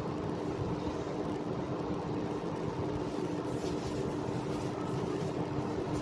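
Running oven giving a steady hum with a constant low tone.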